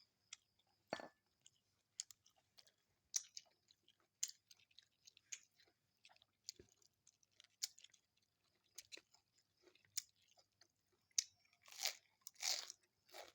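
A person eating: soft chewing with scattered small crunches and mouth clicks. A few louder crunches come near the end.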